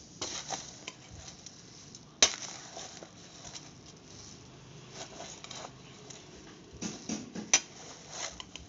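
A metal spoon clinking and scraping against a stainless steel bowl while stirring dry puffed rice, with the rustle of the rice between strokes; two sharper clinks come about two seconds in and near the end.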